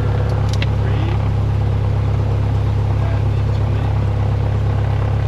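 Cessna 172's piston engine idling steadily just after start, a constant low drone with no change in level.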